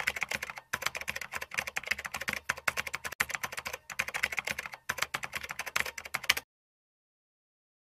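Keyboard typing sound effect: a fast run of key clicks with a few short breaks, cutting off suddenly about six seconds in.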